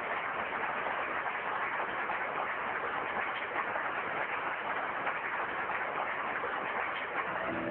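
A seated audience applauding steadily, many hands clapping together. Music comes in near the end.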